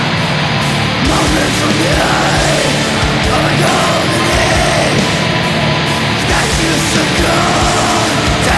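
Extreme metal track playing: dense distorted guitars over rapid, pounding drums.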